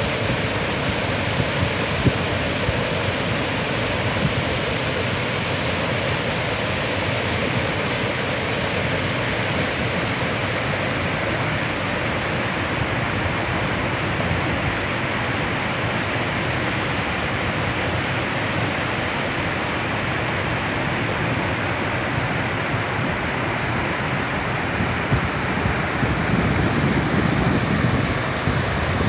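River water rushing steadily over low rock ledges and through shallow rapids, growing a little louder near the end.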